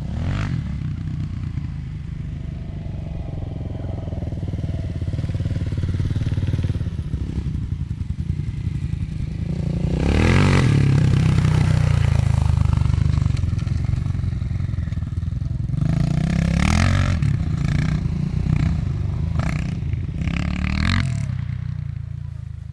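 Kawasaki KLX700R dirt bike engine being ridden past, loudest as it goes by close about ten seconds in. It then surges in several short revs rising and falling in pitch before fading away near the end.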